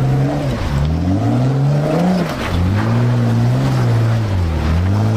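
Jeep engine on a rock-crawling climb, its revs rising and falling several times as throttle is given and pulled back; the driver says the Jeep keeps taking throttle away.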